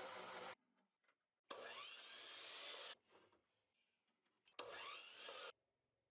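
Wood being worked with a tool, sawing or rubbing, heard in three short bursts that cut off abruptly, with near silence between them.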